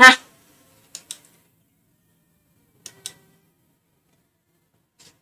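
Faint pairs of quick clicks, once about a second in and again about three seconds in, with another faint click near the end and near silence between: a computer mouse being clicked.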